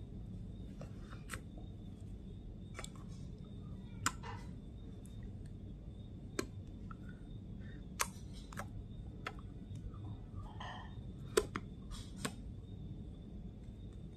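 Scattered sharp clicks and taps from hands and fingers moving close to a phone's microphone, a second or more apart and the loudest about eleven seconds in, over a low steady hum.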